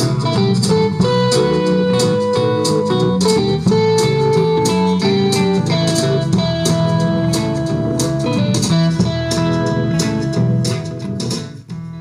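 Blues-style guitar music playing through the loudspeaker of a restored 1952 Saba Freiburg W2 tube radio, with full treble while its 'Breit' (wide) bandwidth button is pressed. Near the end the music turns quieter and duller.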